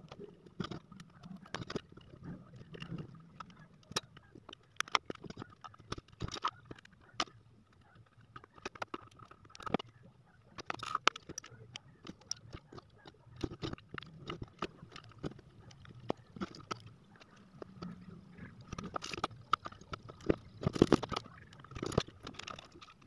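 Handling noise from small electronic components and tools on an amplifier circuit board: scattered irregular clicks, taps and light scrapes, the sharpest about halfway through and near the end.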